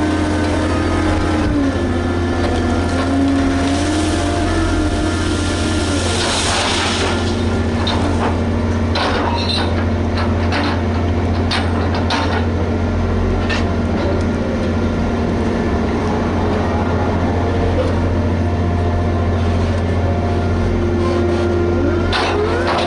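Liebherr HS 8200 dragline running steadily at work, its engine giving a deep hum with tones that shift in pitch, scattered metallic clanks and knocks, and a short rushing noise about six seconds in.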